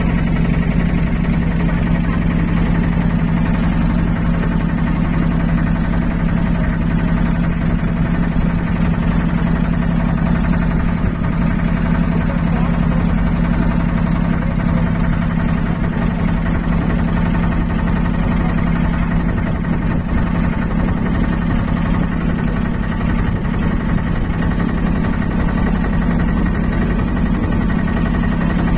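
Boat engine running at a steady speed, an even, unchanging hum.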